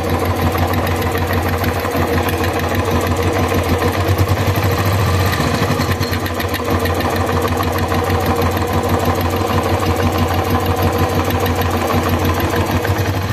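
Royal Enfield UCE single-cylinder engine idling with a fast, even ticking clatter, the 'kit-kit' noise that the mechanic traces not to the cams, tappets, pushrods or rockers but to the diaphragm of the pulse air valve (PAV) emission-control unit.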